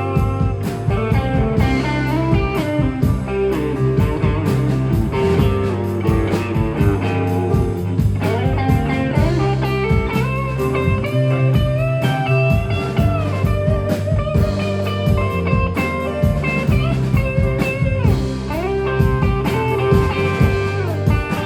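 Live band playing an instrumental passage: lead guitar with bent, sliding notes over a full band with drums.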